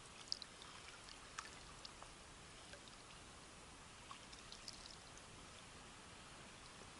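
Faint small waves lapping and splashing against the side of a small boat on choppy water, with a scatter of light splashes and drips in the first couple of seconds and again around four to five seconds in.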